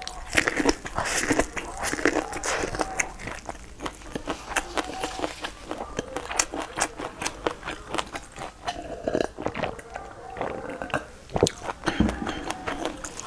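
Close-miked biting and chewing of cooked black waxy corn on the cob, with many sharp crunches and wet mouth clicks as the kernels are bitten off and chewed.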